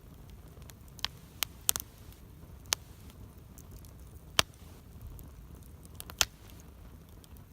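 Wood campfire crackling: about eight sharp, irregular pops, the loudest about four seconds in, over a low steady rumble.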